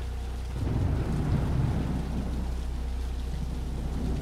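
Steady rain with a low rumble of thunder that swells about half a second in, then eases.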